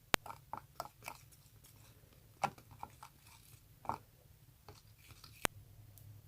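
Whipped-cream-and-flour dough being squeezed and pressed by hand, making short irregular squishy, crackly sounds, with two sharp clicks, one just after the start and one near the end.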